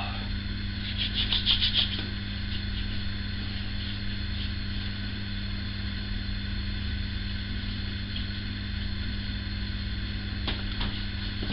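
Hands patting and rubbing aftershave lotion onto the face and neck, with a quick run of soft pats about a second in and a few faint taps near the end, over a steady low hum in the room.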